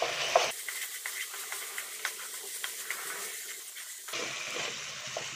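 Chopped onions and tomatoes sizzling in hot oil in a steel kadai, with a steady hiss, while a wooden spatula scrapes and taps against the pan in short clicks as it is stirred.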